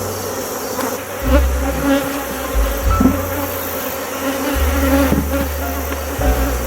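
A mass of honeybees buzzing steadily around an opened hive. A low rumble comes and goes several times, and there are a few knocks.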